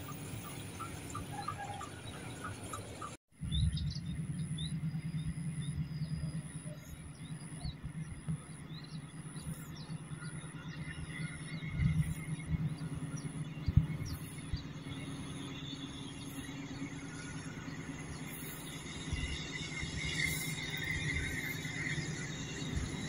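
Outdoor ambience with birds chirping over a steady low rumble, the sound breaking off and changing about three seconds in.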